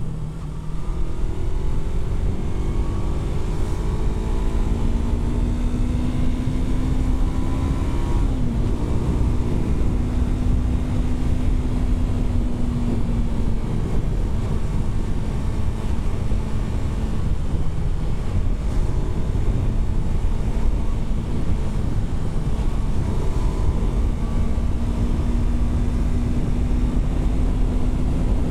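Yamaha R3's parallel-twin engine pulling under acceleration, its pitch climbing for about eight seconds, then dropping at an upshift and settling into steady cruising revs, over a heavy wind rumble.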